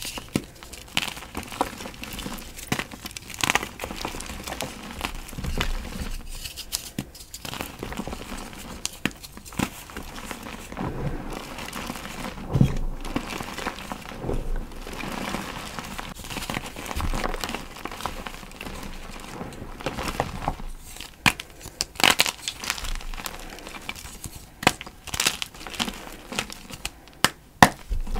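Gym chalk blocks and their packaging being handled: irregular crinkling and crunching, broken by many sharp crackles.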